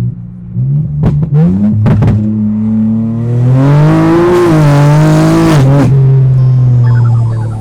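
Loud BMW M3 G80 twin-turbo inline-six on open downpipes with no exhaust. It idles, gives a few quick blips with sharp cracks about a second in, then holds a rev for about two seconds before dropping back to idle.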